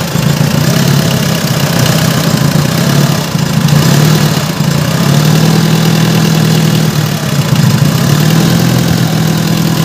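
Mitsubishi 4D56 four-cylinder diesel engine idling steadily on its first run after a top overhaul, its idle speed set too low and needing adjustment.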